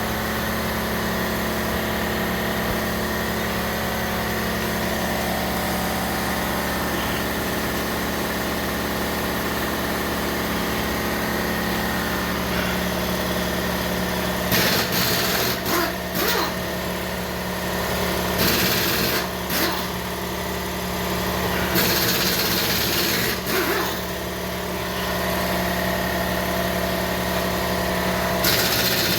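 A motor running steadily throughout. In the second half, several short bursts of loud hiss cut in over it.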